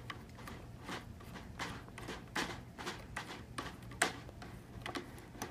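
Irregular small clicks and taps of hands working the snare strainer's clamp, pulling the plastic snare-wire strap tight and clamping it down, with one sharper click about four seconds in.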